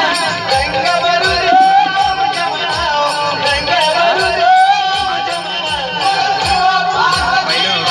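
Marathi Naman folk song: voices singing a wavering melody over a steady, quick beat of mridang drum strokes and small taal hand cymbals.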